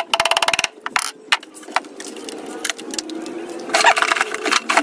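Hammer knocking nails into a small scrap-wood box: a quick run of knocks at first, then scattered single strikes. Near the end, tools clatter as they are rummaged through in a toolbox.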